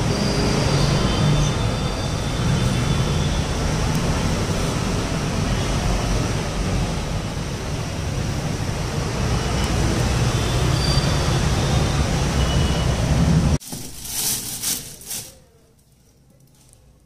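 Steady street traffic noise with a heavy low rumble. About thirteen and a half seconds in, it cuts off abruptly to a much quieter indoor sound: a moment of brief rustling, then faint room tone.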